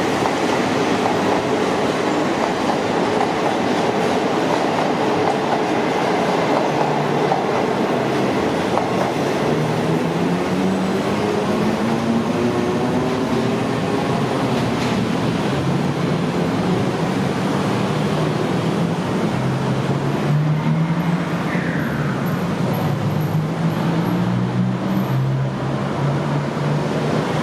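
Diesel passenger train running on the track with a steady rumble. From about ten seconds in, its engine hum rises and falls in pitch.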